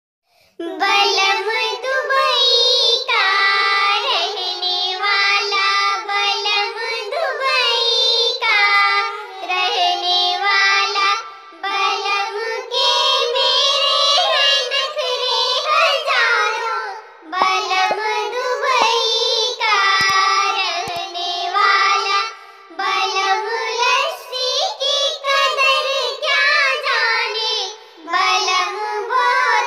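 A women's nakta jhumar folk song sung in a high, sped-up cartoon voice, starting about half a second in and running with only brief pauses.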